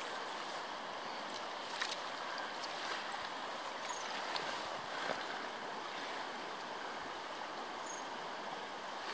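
Shallow river running over a gravel bed, a steady rush of flowing water with a few faint ticks.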